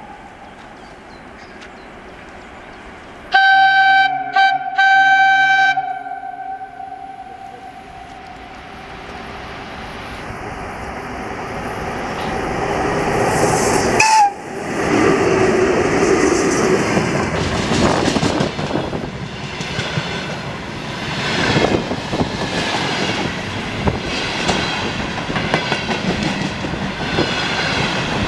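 VL10U electric locomotive hauling a freight train: its horn sounds about three seconds in as a long, a short and a long blast. The train's noise then grows as it approaches and peaks sharply as the locomotive goes by at about halfway. For the rest, the freight wagons' wheels clatter rhythmically over the rail joints as they pass close by.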